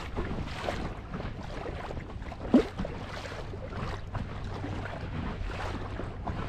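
Lake water splashing and rushing along the hull of a moving boat, over a low steady hum, with wind on the microphone. One short, louder thud about two and a half seconds in.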